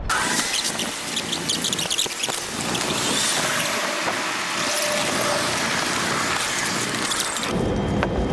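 Hissing rail-station noise with scattered clicks and a faint squeal, giving way near the end to the low steady rumble inside a train carriage.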